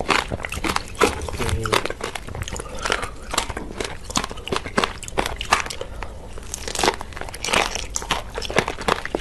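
Close-miked crunching and chewing of frozen strawberries: a dense, irregular run of sharp crackling bites.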